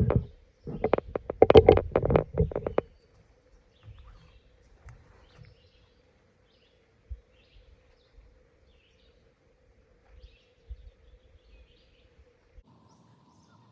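A camera being handled and set down on the ground: about two seconds of rustling and knocking, then quiet outdoor ambience with faint scattered bird chirps and a faint steady tone.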